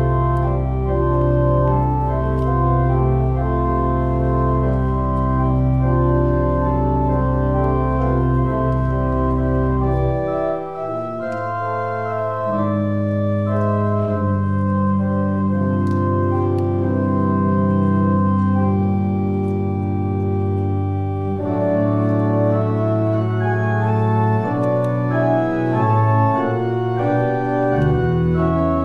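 Church organ playing slow, sustained chords, with a deep pedal bass note held under them for the first ten seconds or so before it drops away.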